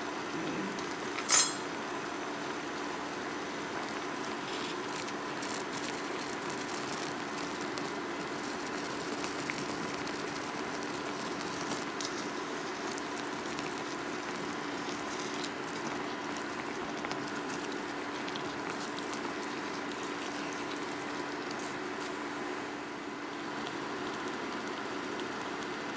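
Ground turkey simmering and sizzling in its juices in a skillet, a steady hiss with a faint steady hum beneath it. A sharp metal clink on the pan comes about a second in, and a metal spatula scrapes and taps now and then as it breaks up the meat.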